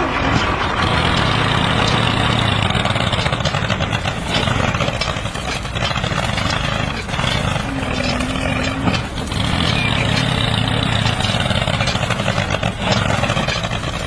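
Mini tractor engine running steadily.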